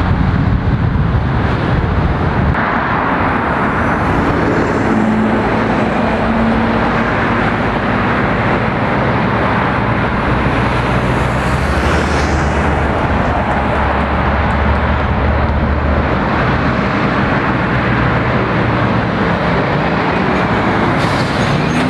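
Road traffic passing: lorries and cars, with diesel engines running and tyres on the road in a steady, loud wash of noise. A Scania lorry with a curtain-sider trailer comes close near the end.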